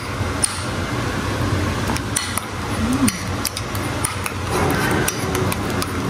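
Metal spoon stirring a thick mayonnaise sauce in a ceramic bowl, clicking and scraping against the bowl in irregular light taps, over a steady low hum.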